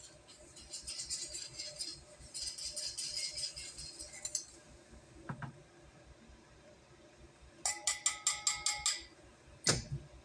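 Metal diesel-heater combustion chamber parts being worked by hand: two spells of scratchy scraping, then a quick run of about eight ringing metallic clinks and a sharp knock near the end.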